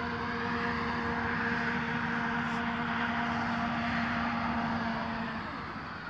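Astro-Physics Mach2GTO equatorial mount's motors and gearboxes whining as the mount slews at 1800x go-to speed: a steady hum with several held tones that stops near the end. The whine carries the axis vibration noise that the owner hears at fast slew rates, which he takes for a fault.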